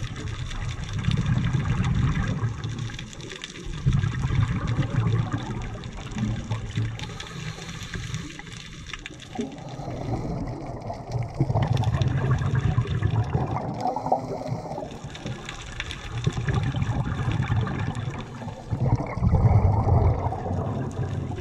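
Water noise picked up by an underwater camera: a low rumbling wash that swells and eases every couple of seconds, with a shift in tone about halfway through.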